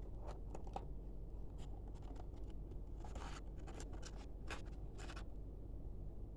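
Packaging being handled during unboxing: a string of light scratchy rustles and clicks, with a longer scrape about three seconds in, over a steady low hum.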